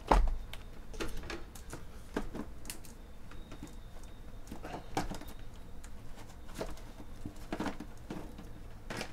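A stack of cardboard trading-card hobby boxes set down on a table with a thump, followed by scattered light clicks and taps of handling.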